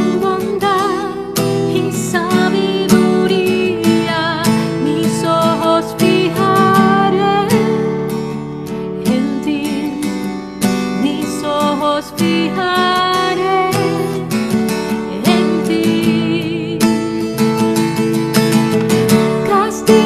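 A woman singing with vibrato while strumming chords on an acoustic guitar.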